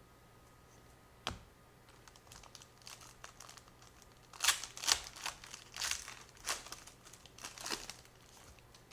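A trading-card pack's foil wrapper being torn open and crinkled by hand: one sharp tap about a second in, then scattered crackling that turns into several loud bursts of crinkling in the second half.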